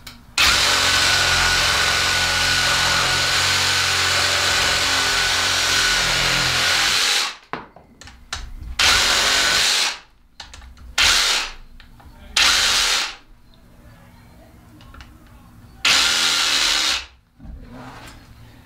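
Ryobi cordless one-handed reciprocating saw cutting through a thin tree branch: one long steady cut of about seven seconds, then four shorter runs of the saw, each cut off sharply.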